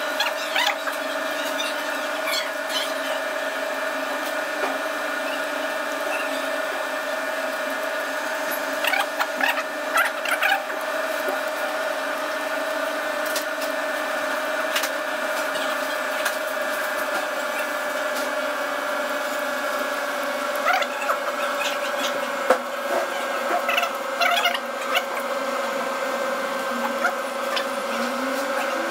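A steady motor hum with several fixed tones runs throughout. Over it come scattered short clicks, crinkles and mouth sounds of someone eating by hand from a plastic-covered table and chewing, bunched about a third of the way in and again in the later part.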